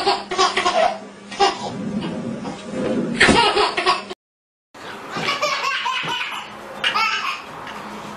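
Babies laughing in repeated bursts of giggles, broken by a brief total silence about four seconds in.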